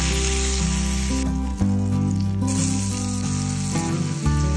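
Oil sizzling in a cast-iron skillet as breaded chicken cutlets fry, then as diced onions sauté. The sizzle thins briefly a little after a second in.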